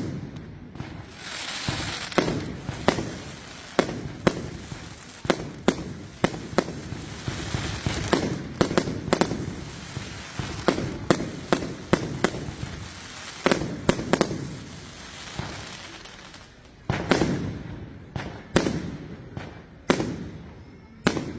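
Firework batteries firing in an irregular run of sharp bangs, about one to two a second, with crackle and hiss between the bursts.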